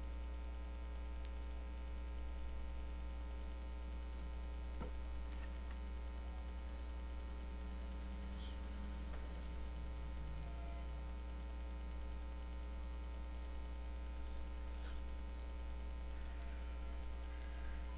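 Steady electrical mains hum with a stack of overtones, and faint ticks about once a second.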